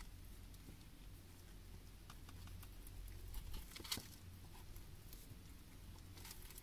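Faint handling sounds: soft rustles and light clicks of plastic-gloved hands working sashimi on a plastic tray, with one sharper click about four seconds in, over a low steady hum.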